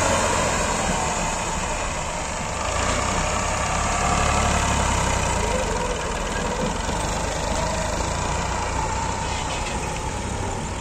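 Diesel tractor engine working hard under load, pulling a heavily loaded trolley of soil. It runs steadily, with a slight swell in loudness about three seconds in.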